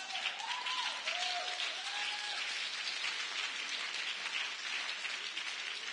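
Audience applauding, a dense even patter of many hands clapping, with a few brief voices from the crowd in the first two seconds.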